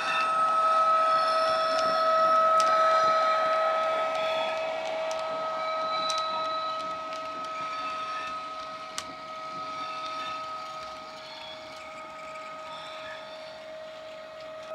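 Jagerndorfer model City Airport Train running past with its factory DCC sound decoder playing a steady electric-traction whine through its small speaker, with occasional clicks from the wheels on the track. Loudest a few seconds in, then fading as the train moves away.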